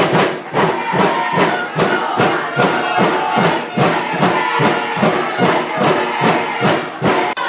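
Music with a steady, quick drum beat, about two to three beats a second, under held melodic notes; it cuts off abruptly near the end.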